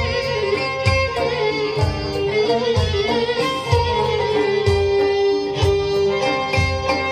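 Kurdish folk ensemble playing an instrumental passage: two violins lead the melody over oud and keyboard, with a steady low beat about once a second.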